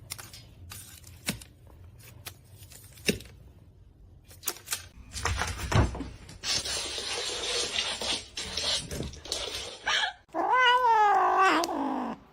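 Domestic cat giving one long, wavering yowl near the end, the loudest sound here. Before it come scattered knocks and a few seconds of steady rushing noise.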